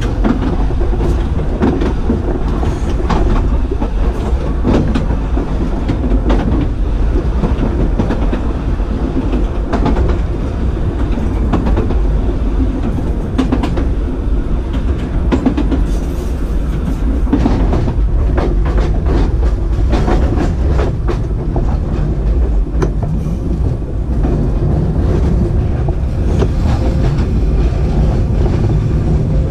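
W7-class electric tram running along the track, heard from the cab: a steady rumble with frequent sharp clicks from the wheels going over the rails.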